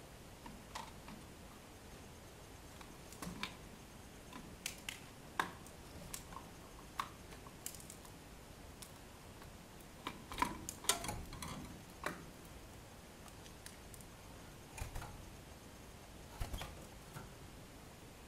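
Small cage birds moving about in their cage: scattered, irregular small clicks and taps, as of hopping on perches and beaks working at bars or seed, with a busier run of taps about ten to twelve seconds in.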